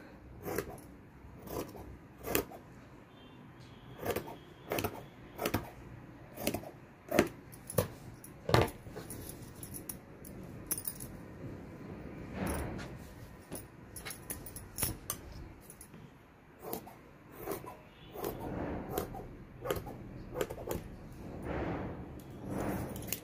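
Tailoring scissors cutting cloth: irregular sharp metallic snips of the blades, with fabric rustling in between.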